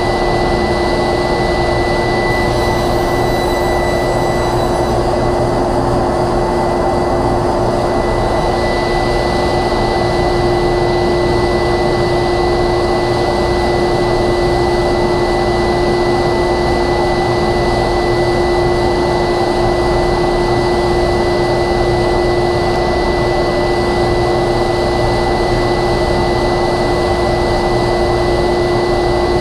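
Workshop dust collector running steadily: a loud, even rush of air with a steady hum and a thin high whine over it.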